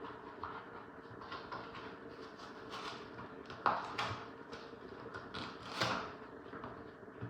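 Phone packaging being handled and opened by hand: scattered small clicks and rustles, with a sharp click about halfway through and a louder rustle about a second later.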